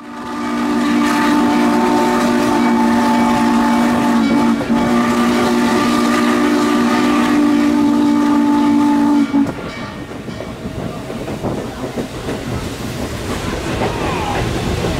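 A steam locomotive's chime whistle blowing one long, steady blast of several notes at once, cutting off sharply about nine seconds in. The rumble and clatter of the moving train follow.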